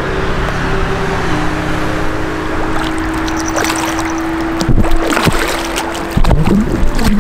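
A hooked carp of about 60 cm splashing and thrashing at the water's surface as it is brought in. Several sharp splashes come in the second half, over a steady low hum and constant water noise.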